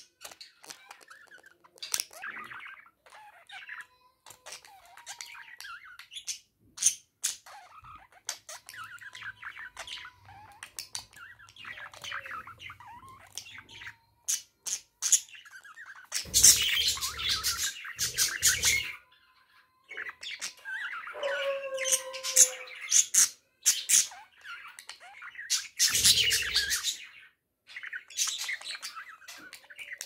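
Budgerigar warbling and chattering at its reflection in a toy mirror: a continual stream of chirps, short whistles and quick clicks, with two louder bursts, one about halfway and one near the end.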